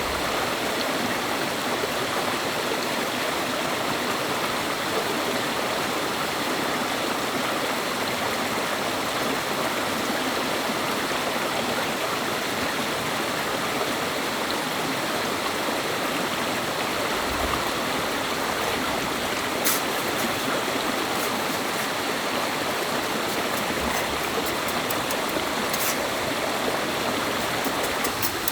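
Jungle stream running, a steady rush of water, with a few light clicks in the second half.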